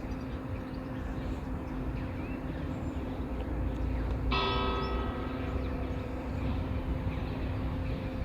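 A steady hum over a low rumble. About four seconds in, a single bell-like ring with many overtones sounds and fades over about a second and a half.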